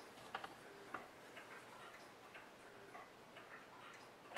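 Faint, unevenly spaced ticks, about one every half second, over near-silent room tone, with a sharper click at the very end.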